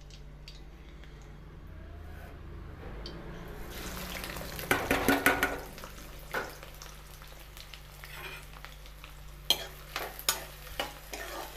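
Chopped onions and green chillies dropped into hot oil in a steel kadhai, starting to sizzle about four seconds in. A spoon stirs them, clacking against the pan, with a cluster of clacks just after the onions go in and more near the end.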